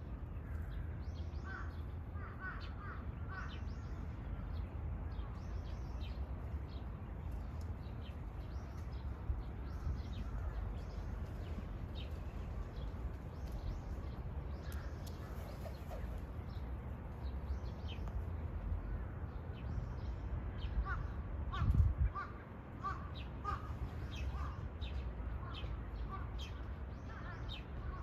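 Outdoor ambience: birds calling in short runs of chirps over a steady low rumble, with one brief low thump about three-quarters of the way through.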